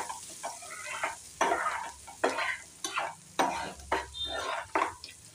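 A metal spoon scraping round a metal frying pan in quick strokes, about two a second, stirring grated ginger and green chilli as they fry gently in oil on a low flame, with a faint sizzle underneath.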